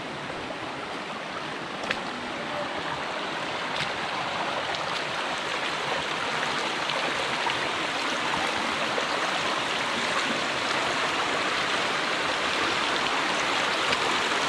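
Rushing water of a hill stream, a steady noise that grows slowly louder.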